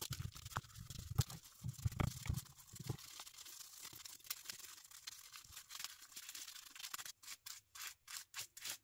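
Bristle paintbrush scrubbing glue over a textured resin surface: a faint, scratchy brushing with some low bumps in the first few seconds, turning to quick, short strokes about three or four a second near the end.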